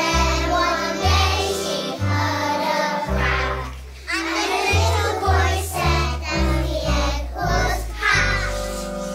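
Choir of young children singing to an instrumental accompaniment with a bass line that steps from note to note.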